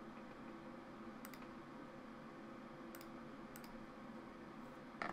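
Computer mouse clicking: four short, sharp clicks, unevenly spaced, as the points of a slot are placed in a CAD sketch. A faint steady hum lies beneath.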